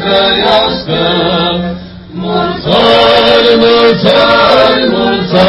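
Orthodox liturgical chant sung by a group of voices in held notes over a steady low drone note, with a brief break about two seconds in.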